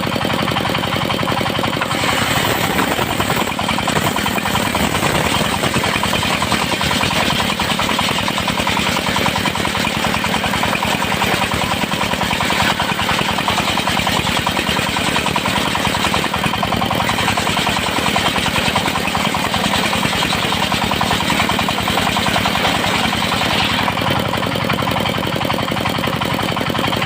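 Engine-driven circular sawmill running steadily, its blade cutting through teak from about two seconds in until near the end, with a short break about two-thirds of the way through.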